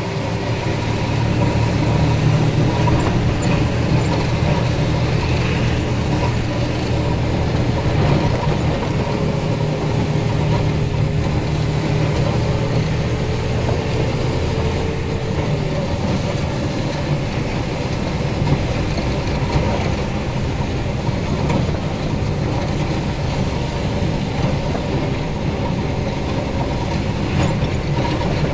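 Mercedes-Benz Unimog's diesel engine running steadily while under way, heard from inside the cab. A faint steady tone rides over it and stops about halfway through.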